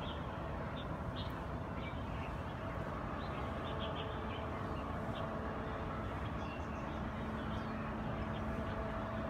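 Steady city background hum, mostly distant traffic, with birds chirping in short bursts throughout.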